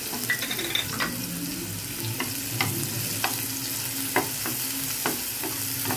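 Chopped onions sizzling in hot oil in a pan while being stirred, the utensil knocking and scraping against the pan every second or so.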